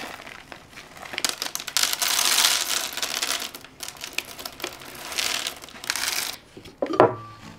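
A packaged coffee-bean bag crinkling as it is handled for several seconds, loudest in the middle, followed near the end by one sharp click.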